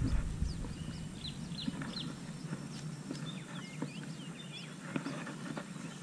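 Birds chirping with many short, high, quickly falling calls, over faint clicks and rustling from handling a hooked snakehead in a lip-grip. A low rumble on the microphone dies away in the first half second.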